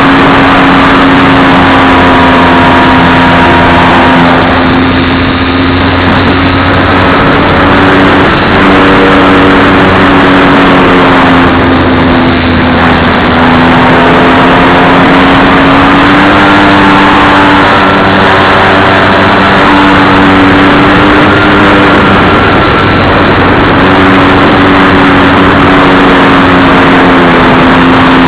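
RC plane's motor and propeller running steadily at a loud, constant drone, its pitch drifting gently up and down with the throttle.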